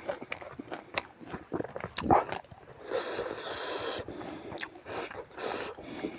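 Close-miked chewing and lip-smacking of a mouthful of smoked pork and rice, full of short wet clicks, with fingers squishing rice against a banana leaf.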